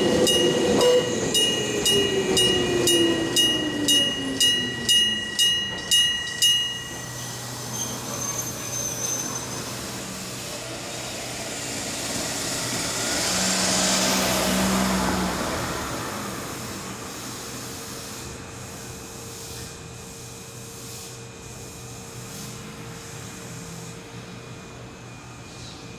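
Railway level-crossing electric bell ringing at about two strikes a second, then stopping about six and a half seconds in. Under it a train's running sound fades with a falling tone, and a vehicle passes later, loudest about fourteen seconds in.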